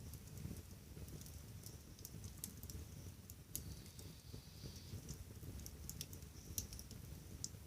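Wood fire in a fireplace crackling, with irregular sharp pops and snaps over a low steady rumble.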